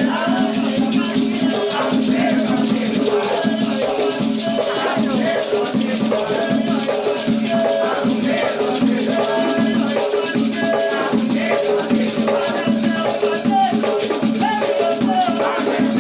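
Batuque ritual music: drumming and rattles keep a steady rhythm under group singing.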